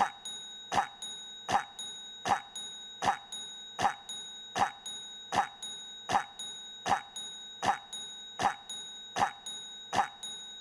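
A short cough sound effect looped over and over, a cough about every three-quarters of a second, each one a small catch followed by a sharp louder hack. A steady high tone sits underneath.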